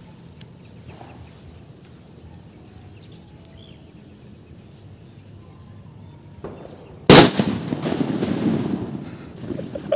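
Homemade firecracker going off with a single very loud bang about seven seconds in, after a quiet stretch while its slow fuse burns. The blast's noise trails off over a couple of seconds.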